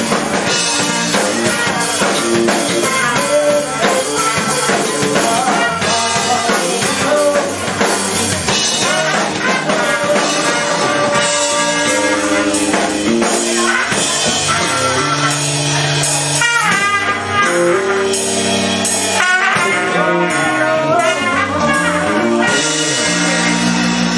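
A live rock band playing: a trumpet over drum kit, electric guitar and bass, with a singer's voice on a microphone.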